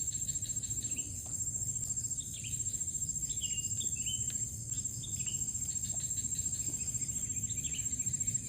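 A steady, high, pulsing trill of night insects such as crickets, with many short chirping calls scattered over it and a low steady rumble beneath.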